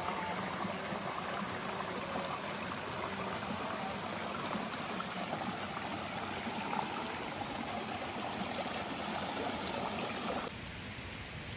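Small forest stream trickling and splashing down between mossy boulders, a steady rush of water that gets a little quieter near the end.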